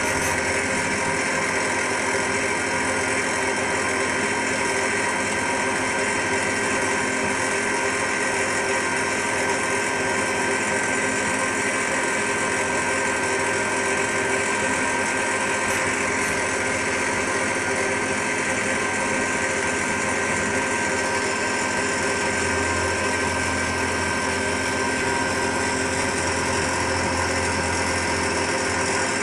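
Macpower Turn O' Mill 200 CNC turn-mill centre machining a metal part with an end mill driven by a live tool holder: a steady machine drone with several held tones, and a deeper hum that grows stronger about three-quarters of the way through.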